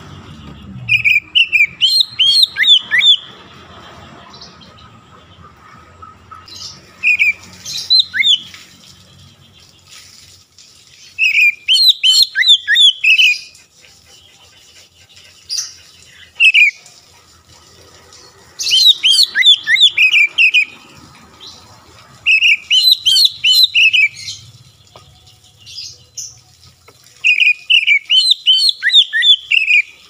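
Oriental magpie-robin (kacer) singing in loud phrases of rapid, sharp whistled notes. Each phrase lasts a second or two and comes about seven times, with short pauses between.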